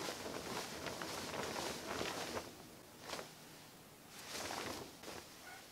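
Rustling swish of a heavy, many-tiered cotton patchwork skirt being swung and twirled: a run of swishes over the first couple of seconds, then shorter swishes about three and four and a half seconds in.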